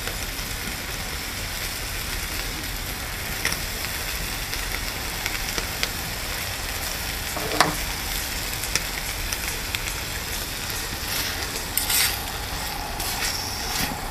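Chopped bacon sizzling steadily in a small frying pan, with occasional crackles. In the last few seconds a fork scrapes and stirs the bacon in the pan.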